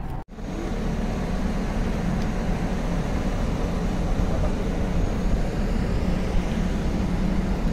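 Steady low rumble of a tour bus's engine and road noise, heard from inside the bus.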